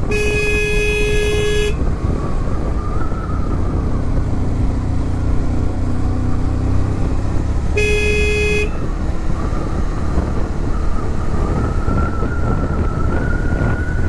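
Motorcycle riding along a winding road, its engine and wind noise rumbling steadily. A single-tone horn honks twice: a longer honk of under two seconds at the start and a shorter one about eight seconds in.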